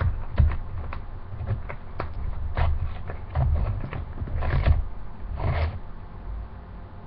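Plastic Priority Mail mailer being torn open by hand: a run of crinkles and short rips, the two longest about four and a half and five and a half seconds in, over low thumps of handling the package.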